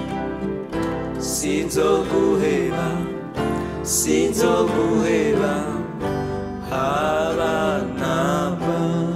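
Gospel worship song performed live: male and female voices singing together over acoustic guitar and keyboard chords.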